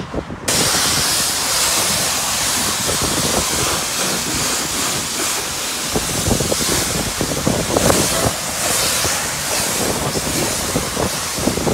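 High-pressure wand at a self-service car wash spraying onto a car, a loud steady hiss that starts abruptly about half a second in.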